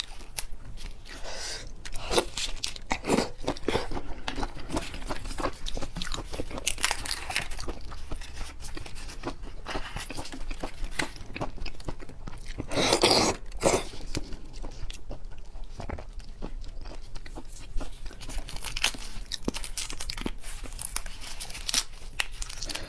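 Close-miked eating of seafood: repeated crunching bites and wet chewing, with a louder, longer crunch about thirteen seconds in.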